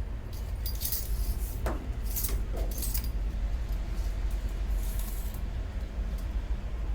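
Small metal hardware, washers and fittings, clinking and jangling in several short bursts as they are handled and fitted onto a cable connection, over a steady low hum.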